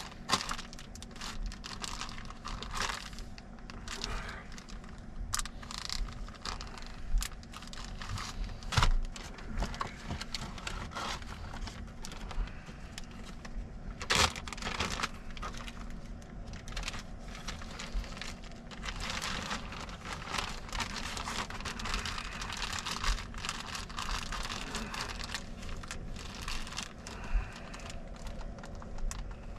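Plastic zip-top food bags crinkling and rustling as they are handled, filled and sealed, with scattered sharp clicks and snaps. The rustling is busiest a little past the middle.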